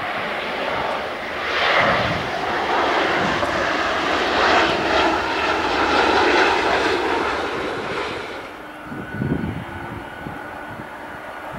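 Boeing 767-330ER's twin jet engines at takeoff thrust during the takeoff roll: a loud, even rushing noise that swells over the first few seconds. It drops sharply about eight and a half seconds in to a much fainter, steady engine sound.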